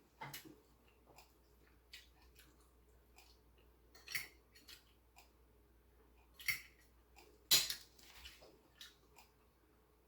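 Person eating ramen noodles: quiet chewing and mouth sounds, with several short sharp clicks or smacks, the loudest about seven and a half seconds in.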